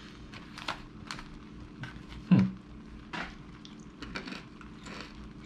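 MRE retort pouches and paper packaging crinkling and crackling as they are handled on a metal tray, in scattered short clicks, with one louder bump about two seconds in.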